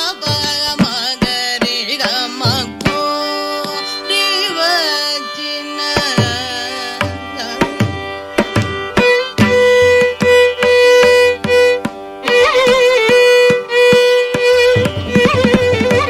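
Carnatic concert music in raga Shankarabharanam: a violin playing a melodic passage with sliding, wavering ornaments, over a steady pattern of mridangam strokes.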